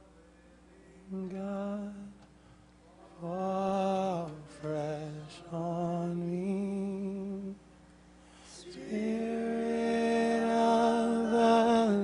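Slow worship singing: a voice holding long notes in short phrases with pauses between them, becoming louder and fuller from about nine seconds in.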